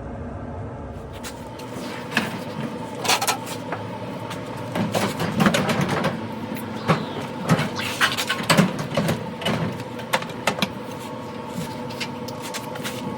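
Irregular knocks and clatter of hands and tools working on a clothes dryer's metal cabinet and parts, over a steady hum. The knocks come thickest in the middle of the stretch.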